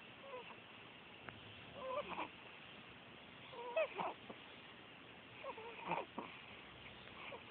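Cat meowing in short calls, four times, each bending in pitch, the loudest about four seconds in.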